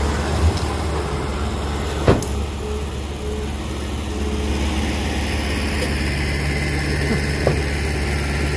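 Heavy diesel engine of a dump truck or bulldozer running steadily with a low hum, with a sharp knock about two seconds in.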